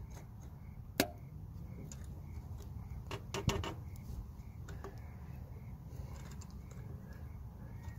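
Side cutters clamped on a screw in a broken dipstick, prying it up inside the dipstick tube: scattered metal clicks and creaks as the stuck piece is worked loose, a sharp click about a second in and a few more around three and a half seconds, over a low steady hum.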